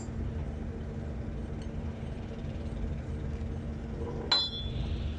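Steady low machinery hum, with one sharp metallic clink and a brief ring about four seconds in as metal parts of a detached electric davit slewing motor are handled.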